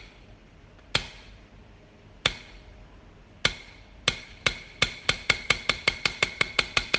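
A series of sharp ticking clicks, each with a short metallic ring. They start about a second apart and speed up until they come about five a second, like a ticking build-up sound effect.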